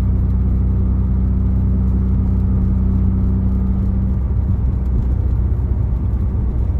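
Subaru EJ257 turbocharged flat-four and road noise heard from inside the car's cabin while driving at a steady speed. The steady engine drone breaks up into a rougher, less even sound about four seconds in.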